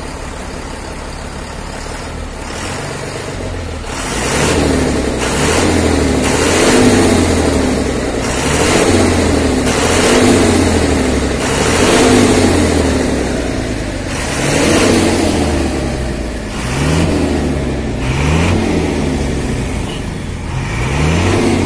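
AMW 3118HL tipper lorry's diesel engine idling, then revved again and again from about four seconds in, each rev rising and falling within a couple of seconds, heard close to the exhaust tailpipe.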